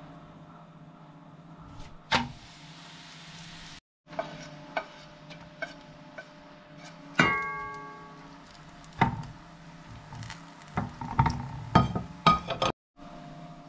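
Cookware clatter: a metal spoon knocking and scraping against a pot and frying pan as filling is spooned onto a tortilla. The loudest is one ringing metallic clang about seven seconds in, over a steady low hum.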